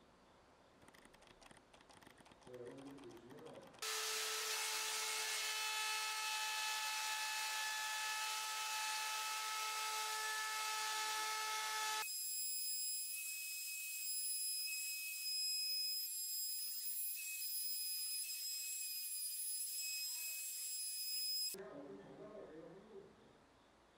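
Handheld Makita router running at full speed as it trims the edge of a curved walnut piece, a steady high whine. It starts suddenly about four seconds in; about halfway through the low part of the sound drops out abruptly, leaving only a thin high whine, which cuts off sharply a couple of seconds before the end.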